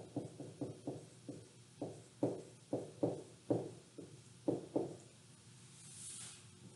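Dry-erase marker writing on a whiteboard: a run of short, irregular taps and strokes as letters are formed, stopping about five seconds in. A brief soft hiss follows about a second later.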